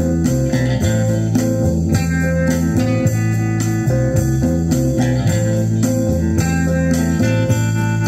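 Guitar music with a bass line stepping from note to note, played back in mono from a stereo-check test track through an Eico ST-40 7591 tube integrated amplifier and Klipsch Heresy speakers.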